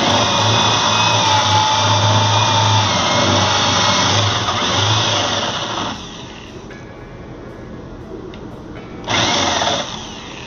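Handheld electric power tool running under load for about six seconds, then cutting off. Near the end it runs again in a short burst of under a second.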